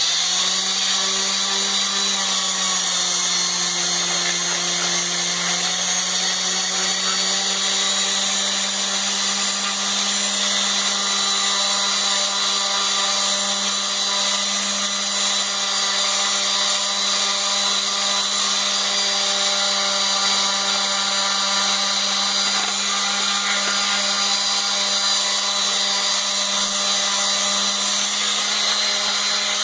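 Electric sander running continuously against the steel of a tractor lift arm, taking it down for paint. Its motor pitch sags a few seconds in as it is pressed harder, then holds steady.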